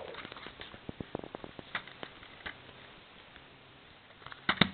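Fingers handling a plastic Blu-ray case: a run of small clicks and taps, then two louder snapping clicks near the end as the case is opened.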